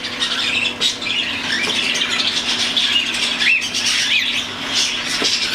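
A flock of young, nearly weaned cockatiels calling at once: many short chirps and raspy squawks overlapping in a continuous chatter.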